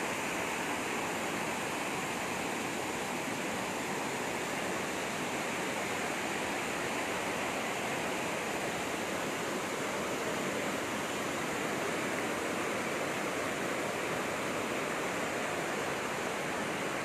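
Fast-flowing stream water rushing steadily, the current running strong with the water high after rain.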